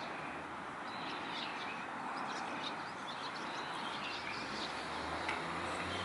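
Short, high chirps of small birds scattered over a steady background hum of traffic; a low engine drone rises in the last second or two.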